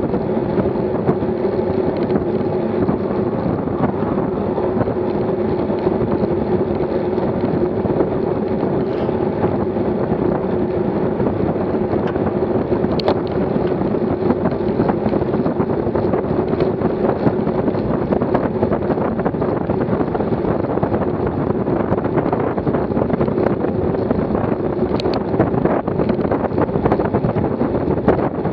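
Steady wind rush on the microphone of a bike-mounted camera, with road noise, as a road bike rides at about 25 mph.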